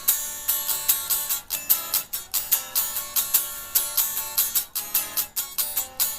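Guitar strumming chords in a steady, driving rhythm, about three to four strums a second.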